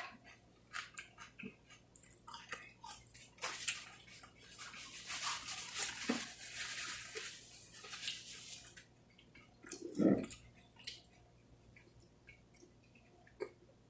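Close-up mouth sounds of someone eating chicken wings: wet chewing and lip smacks. In the middle there is a longer hissing, wet stretch, and about ten seconds in comes one dull thump.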